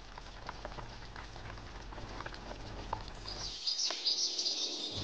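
A pot of thick soup simmering on low heat, faint small bubbles popping and ticking. About three and a half seconds in, high birdsong chirps take over.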